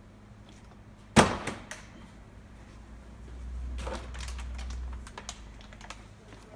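A flipped plastic water bottle lands with one hard smack about a second in, followed by a couple of small bounces. Later comes the low bumping and knocking of the bottle being picked up off the shelf and handled.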